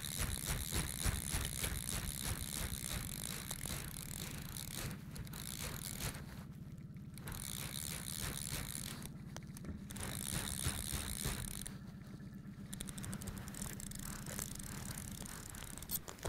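Fly reel's click-pawl drag ratcheting rapidly as a hooked fish is played, stopping and starting several times.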